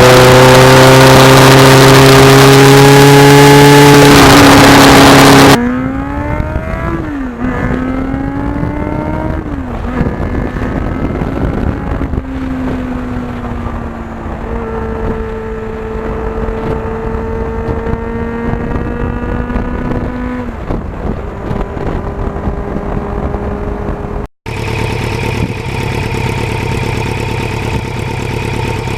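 Kawasaki GPX750R inline-four motorcycle engine heard on board while riding: loud wind rush on the microphone over an engine slowly dropping in pitch, then the engine pitch rising and falling as it works through the gears before settling to a steady cruise. Near the end it runs at a steady, even pitch.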